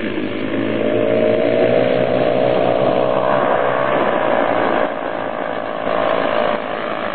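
Sport quad ATV engine running hard at high revs as it skims across water, its pitch climbing slowly over the first few seconds and dropping about five seconds in, with a hiss of water spray from the tyres.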